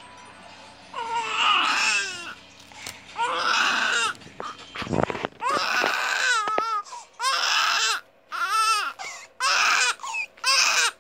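Newborn baby crying, a few drawn-out cries at first, then short wails about one a second toward the end. A brief low bump of handling noise comes about five seconds in.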